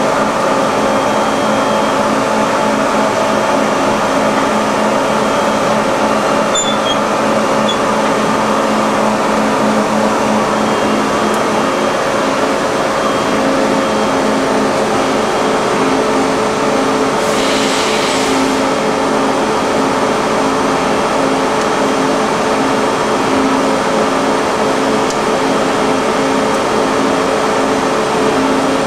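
1984 Niigata HN50A CNC horizontal machining center running while its axes are jogged: a steady mechanical hum made of several held tones, smooth and even. A brief hiss comes about two-thirds of the way through.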